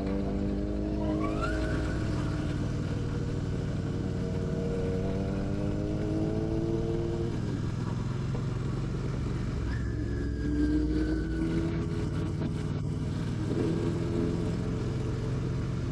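Royal Enfield Classic 650's parallel-twin engine pulling through the gears. Its pitch climbs for several seconds and drops at a gear change about seven seconds in, then climbs again twice.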